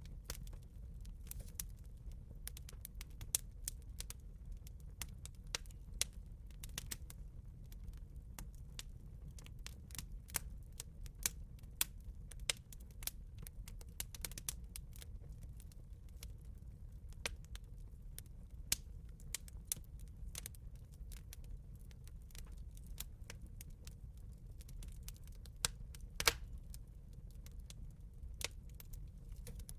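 Campfire crackling: irregular sharp pops and snaps of burning wood over a steady low rumble.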